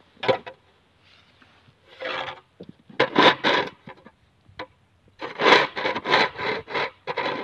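Plastic snow shovel scraping thin snow off pavement in repeated strokes, coming quicker and closer together near the end.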